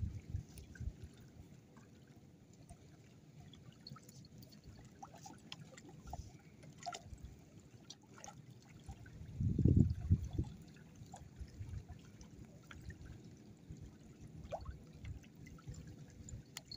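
Faint water trickling and lapping, with scattered small ticks. A low rumble swells up briefly about ten seconds in.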